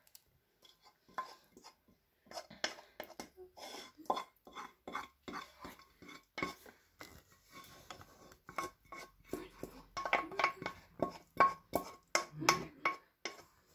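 Clinks, knocks and scrapes of a utensil against a metal saucepan as sauce is poured and scraped out into a casserole dish of pasta. The clatter gets busier and louder in the second half.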